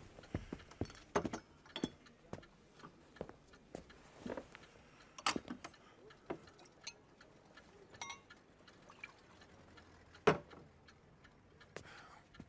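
Sparse, irregular faint clicks and knocks in a quiet room, with one sharper knock about ten seconds in.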